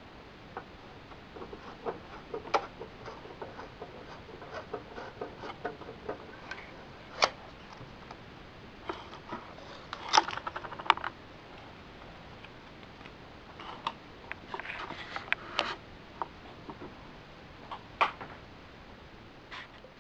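Steady hiss with scattered clicks and pops, like a worn film soundtrack running. There are denser bursts of crackle about ten seconds in and again around fifteen seconds, and a louder snap near the end.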